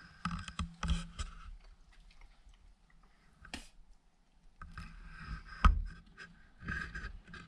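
Handling noise in a small room: rustling and scraping with scattered sharp clicks and one loud knock, as things are moved about in a closet.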